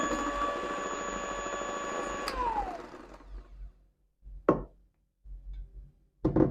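Electric mixer running steadily with a whine while mixing cookie dough, switched off a little over two seconds in and winding down in pitch. A few short knocks follow near the end.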